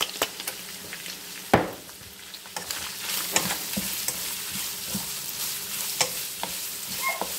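Ground beef and onions sizzling in a nonstick frying pan as a wooden spatula stirs and scrapes them, with scattered knocks of the spatula against the pan. The sizzle gets louder about three seconds in, once the stirring starts.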